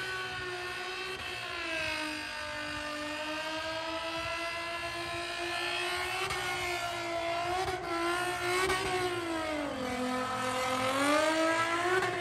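Car engine held at high revs as the car spins donuts with its tires smoking, the pitch sagging and climbing back twice, about two seconds in and again near the end.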